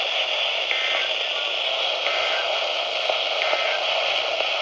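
Steady hiss of radio static from a weather-alert radio receiver with no voice coming through. Faint brief tones show in the hiss three times.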